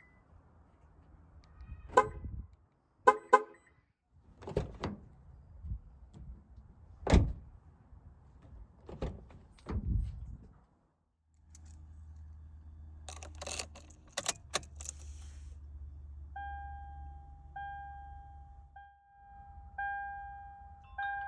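Toyota 4Runner: several knocks and clunks, then a steady low engine hum starts about halfway in, with a run of clicks. About three-quarters in, a dashboard warning chime starts dinging about once a second, the vehicle's alert for low fuel or an oil change coming due.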